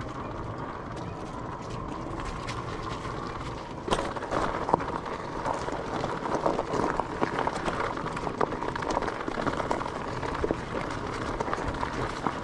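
E-bike tyres rolling along a trail: a steady rolling noise at first, then from about four seconds in a dense, irregular crunching and crackling as the tyres run over gravel and dry leaves.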